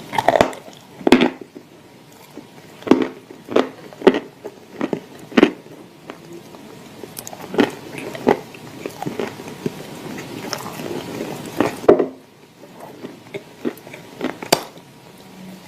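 Close-up mouth sounds of dry clay chunks being bitten and chewed with clay paste: sharp, irregular crunches every half second to a second, with softer chewing between them.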